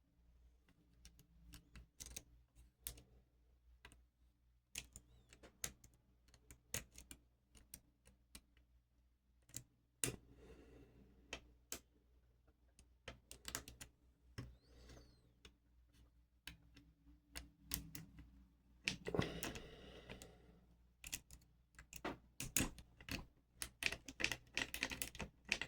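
A steel hook pick working the pins of a pin-tumbler lock under tension: irregular, sharp little clicks and ticks, with short scraping rustles about ten seconds in and again near nineteen seconds.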